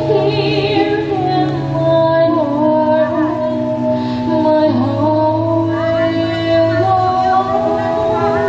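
Exercise music playing: a woman singing a melody over long held chords.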